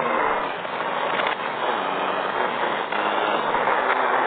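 Video game sound effect of a ceiling fan switched on: a loud, steady mechanical running noise that starts abruptly.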